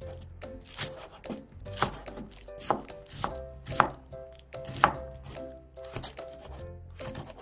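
Kitchen knife slicing an onion and then red chili peppers on a plastic cutting board: a steady series of crisp knocks as the blade hits the board, the loudest strikes in the middle of the stretch, over light background music.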